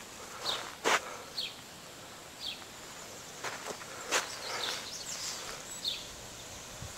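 A bird gives short falling chirps about five times, with a few sharp clicks or snaps in between, the loudest about a second in and about four seconds in.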